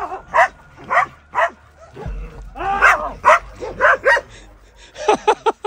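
A pack of stray dogs barking, about a dozen short barks coming in quick runs with brief pauses between them.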